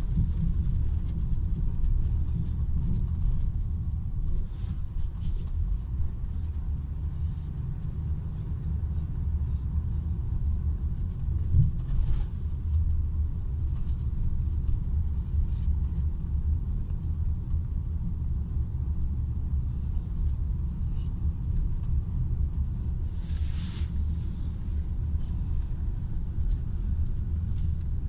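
Steady low road rumble inside a moving car, from engine and tyres, with two brief louder hisses at about twelve and twenty-three seconds in.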